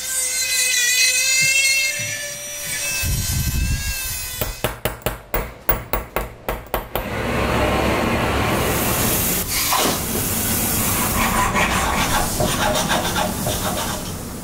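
Silversmith's workshop tool sounds: a small motor's whine that wavers in pitch, then about a dozen quick sharp taps of a chasing punch being struck on a silver cap, about five a second, then a steady scraping of hand-tool work.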